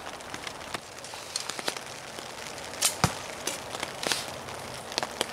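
Steady rain falling in a forest: an even hiss with scattered drops ticking close by, and a couple of louder sharp knocks about three and four seconds in.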